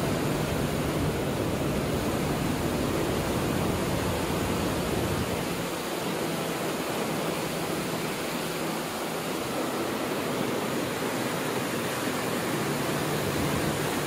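Steady rushing noise with no distinct events; its low rumble eases about six seconds in.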